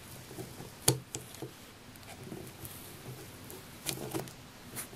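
Small clicks and taps of a metal crochet hook against the plastic pegs of a knitting loom as loops of yarn are lifted over the pegs: one sharp click about a second in, a few softer taps after it, and a short cluster near the end.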